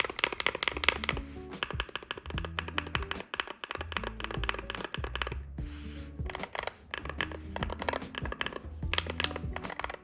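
Rapid typing on a Wooting 60HE magnetic-switch keyboard, a dense run of keystroke clacks, over background music with a steady bass line.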